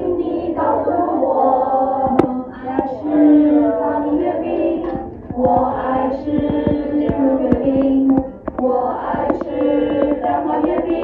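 A group of children singing together in Mandarin, loud and in phrases with some long held notes, over scattered sharp taps.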